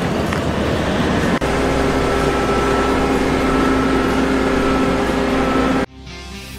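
Sugarcane harvester and the tractor hauling its wagon running under load in the cane field, a steady loud machine drone with a constant hum, which cuts off suddenly near the end.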